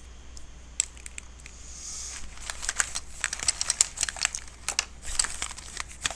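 Crinkling and rustling full of sharp little clicks and crackles. It starts sparse and gets busier from about two seconds in.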